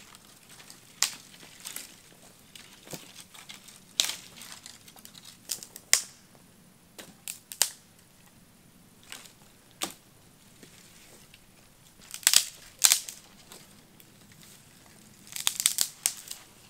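Irregular crunching and crackling of dry twigs and grass, in scattered sharp snaps with louder clusters about twelve seconds in and again near the end.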